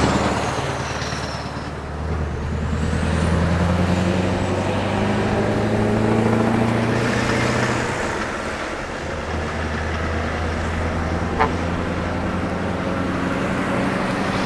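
Scania R560 V8 diesel truck with an open (straight-piped) exhaust driving past and pulling away, loud as it passes, then a steady deep engine note as it moves off. The note rises over the first few seconds and drops about eight seconds in, with a brief sharp tick near the end.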